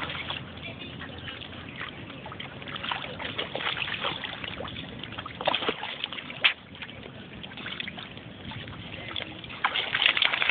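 Dogs wading and swimming in shallow lake water: paws splashing and water sloshing, with scattered sharp splashes and louder splashing near the end.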